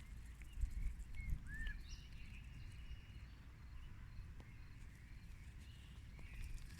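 Wild songbirds singing in the distance: scattered short chirps and whistles, with one brief arching note about two seconds in, over a steady low rumble.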